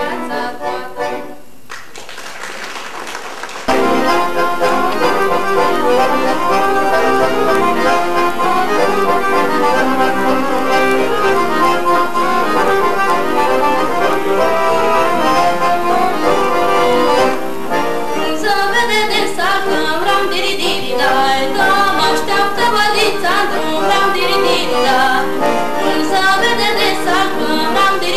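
Accordion playing a Romanian folk tune live; the music comes in full and loud about four seconds in, after a quieter start.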